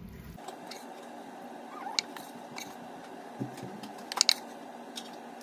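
Wooden spatula knocking and scraping against a pan and a ceramic bowl as stir-fried food is served out: a few sharp clicks, the loudest a quick pair about four seconds in.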